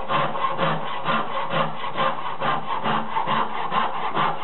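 Lee Valley carcass saw with 14-tooth crosscut teeth sawing into a block of maple with fast, even back-and-forth strokes, about four a second.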